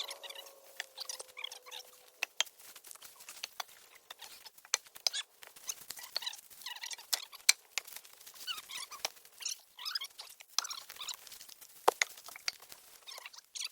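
Cut branches and logs being picked up and dropped onto a wood pile: irregular wooden clicks and knocks with scratchy rustling of dry brush and leaves between them.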